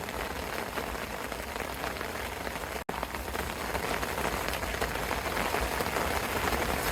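Steady rain falling, an even hiss that drops out for an instant just under three seconds in.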